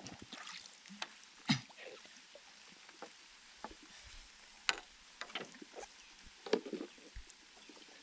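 Scattered, irregular clicks and knocks, with a sharp one about a second and a half in and others near five and six and a half seconds.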